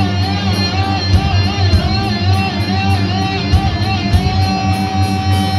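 Heavy metal band playing live at high volume: distorted electric guitars, bass guitar and drums with a steady cymbal beat. The lead guitar line bends up and down repeatedly, then settles on one long held note near the end.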